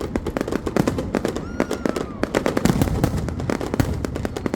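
Fireworks display: a dense, continuous run of sharp cracks and bangs from bursting shells and crackling effects, many each second, with a brief gliding whistle near the middle.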